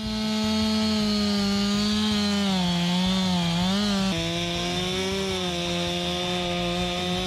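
Two-stroke chainsaw running at high speed as it cuts through a tree trunk. Its pitch sags for a second or so about midway as the chain bogs down in the wood, then holds steady.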